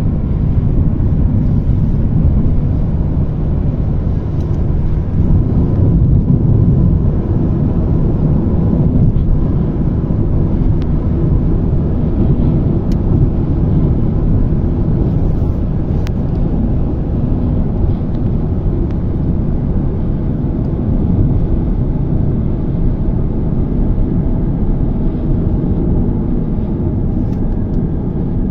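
Steady rumble of a car driving along a road, heard from inside the cabin: engine and tyre noise.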